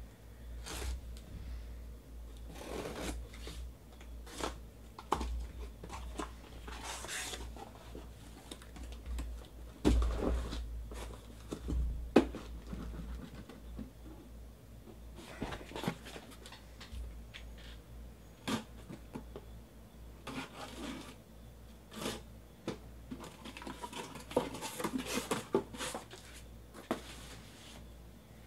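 A cardboard shipping case being cut open and unpacked: packing tape and cardboard scraping and tearing, flaps rustling, and card boxes being slid out and set down, with a couple of sharper knocks about ten and twelve seconds in.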